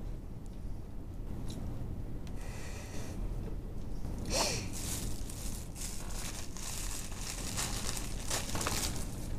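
Irregular rustling and crinkling noises over a steady low hum. They are sparse for about four seconds, then come often, with a short falling sound about four and a half seconds in.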